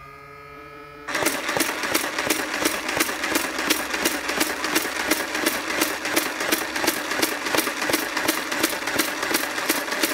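Nerf Mega Mastodon's flywheel motors whining at full speed. About a second in, the blaster fires full auto, a fast, even run of mega-dart shots over the whine for about nine seconds, then stops suddenly as the 24-dart drum is emptied.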